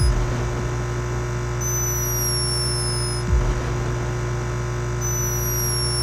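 A sleeping hummingbird snoring: a thin, high whistle that falls slightly in pitch, heard twice, each lasting about a second and a half. Under it runs a steady electrical hum, which is the camera's microphone noise at raised sensitivity.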